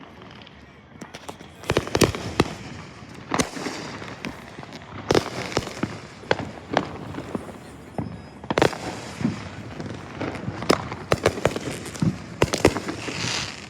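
Consumer fireworks going off: an irregular series of sharp bangs and pops, coming in clusters with a denser run of hits toward the end.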